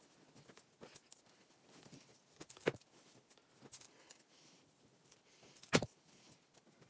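Faint handling sounds of a shirt and a plastic clothes hanger: light rustling and small clicks, with two sharper clicks of the hanger, about two and a half seconds in and near six seconds.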